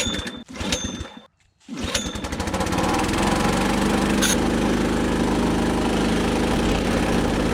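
Small pull-started petrol engine that drives the air compressor for pneumatic pruning snips, catching after a few short bursts. About two seconds in it fires up and runs steadily.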